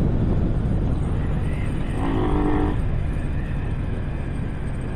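Riding noise from a microphone inside a motorcycle helmet: steady low wind rumble and engine at road speed. About two seconds in, a short pitched tone sounds for under a second.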